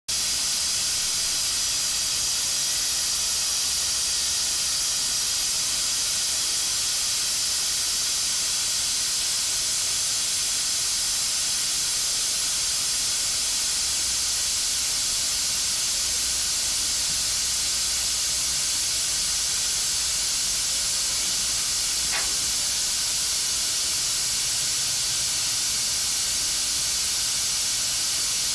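Steady, even hiss of water spray, unchanging throughout.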